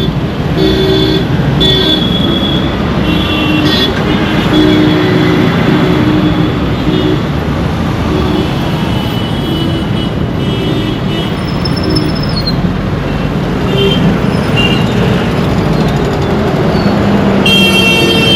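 Dense Indian road traffic: a steady rumble of engines and tyres with frequent short horn honks, most of them in the first few seconds. A louder, longer horn starts near the end.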